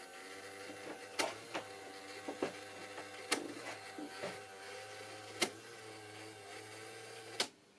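Small electric motor of an HO-scale model vehicle running with a steady whine and hum, its pitch wavering slightly. Sharp clicks come about every two seconds. The motor sound stops with a click near the end.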